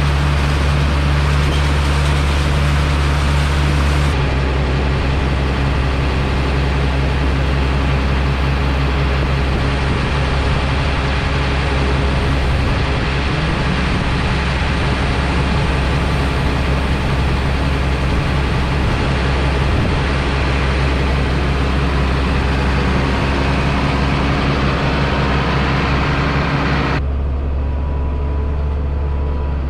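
Heavy farm machinery's diesel engine running steadily and loudly under a broad mechanical hiss. Near the end the hiss drops away, leaving the low engine drone.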